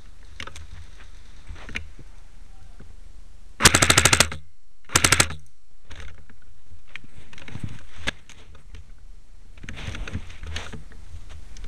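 Airsoft gun firing two short full-auto bursts in quick succession, a rapid rattle of shots, the second burst shorter.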